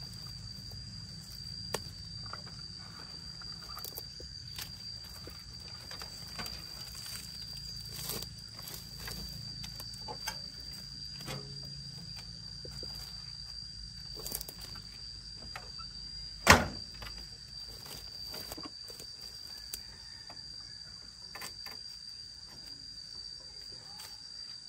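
Scattered clicks, knocks and rustles as hands pull at debris and parts of a derelict, mud-caked tractor, with one much louder knock about sixteen seconds in. A steady high-pitched tone sounds underneath throughout.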